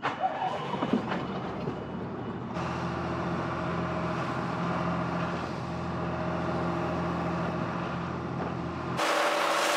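Boat engine running at a steady drone over a rushing hiss, with sudden changes about two and a half seconds in and near the end where the recording cuts.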